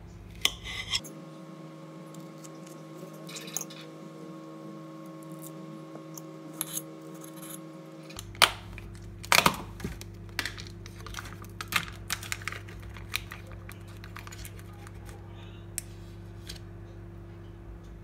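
Small kitchen handling sounds over a steady low hum. A knife clicks against a plate while slicing a peach, then a cluster of sharp clicks and crackles comes as the clear plastic lid is taken off a ricotta tub and its foil seal is peeled back.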